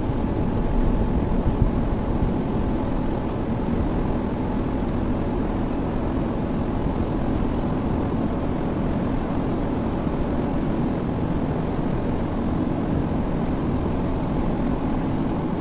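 Steady road noise of a car cruising on an expressway, tyre and engine noise heard from inside the car.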